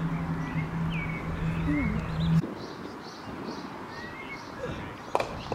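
Birds chirping over open-air ambience, with a steady low hum that cuts off abruptly about two seconds in. Near the end, a single sharp knock of a cricket bat hitting the ball.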